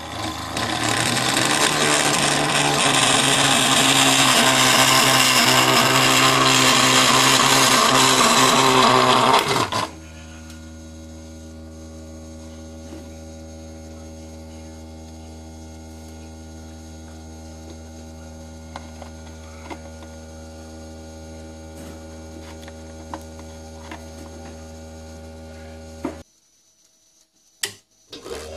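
Homemade electric plastic cutter cutting into a white plastic box: a loud, rough cutting noise over the motor's hum for about ten seconds. After that, only the cutter's steady hum remains once the plastic comes off the cutter.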